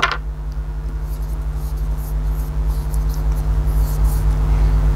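A steady low hum, with faint soft rubbing as fingers spread silicone grease around the metal ring inside the thermos lid.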